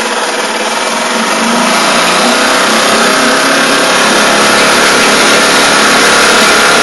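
Small gas outboard boat motor running steadily, slowly getting louder.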